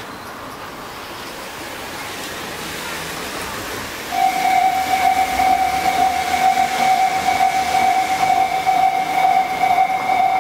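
Japanese level-crossing warning bell that starts about four seconds in and rings on steadily with a quick repeating pulse, signalling an approaching train. Before it, a rising rush of passing road traffic.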